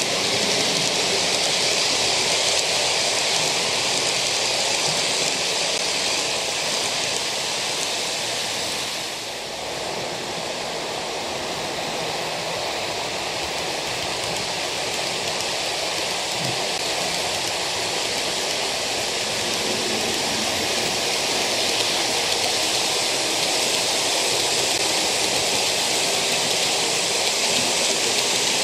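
OO gauge model trains running along the track: a steady rushing hiss of wheels rolling on the rails and the locomotive motors, briefly dipping about nine seconds in.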